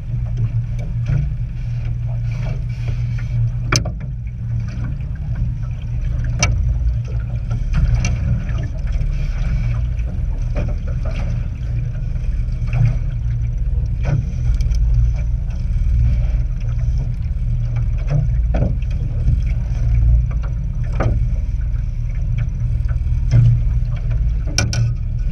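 Steady low rumble from the boat, with scattered sharp clicks and knocks and small splashes as a walleye is landed at the side of an aluminum boat.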